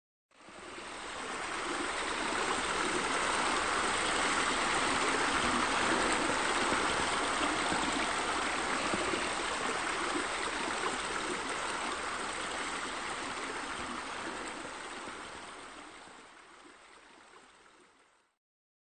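Steady rush of running, splashing water, a water sound effect for the pool's sheer waterfalls spilling into the water. It fades in over the first couple of seconds and fades out near the end.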